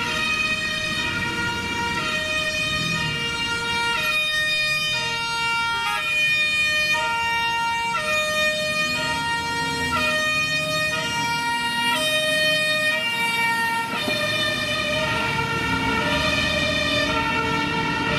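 Fire engine's two-tone siren, a high note and a low note alternating about once a second, over traffic noise. The siren belongs to the Brussels fire brigade's Scania tanker on an urgent run.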